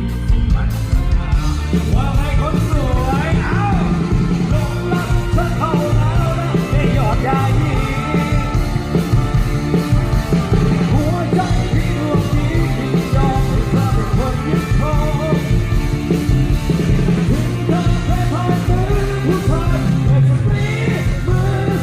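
Live Thai ramwong dance band playing loud amplified music, with a steady drum beat under a sung melody.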